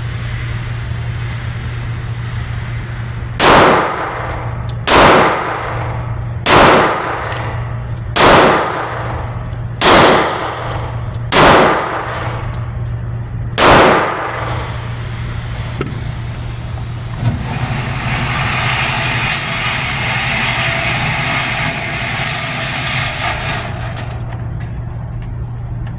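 Seven shots from a Hi-Point C9 9mm pistol with 124-grain Veteran ammunition, fired at a steady pace about a second and a half apart, each with a short ring after it. Afterwards a steady rushing noise rises for several seconds.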